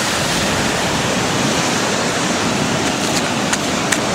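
Ocean surf washing up a sandy beach, a steady rush of breaking water.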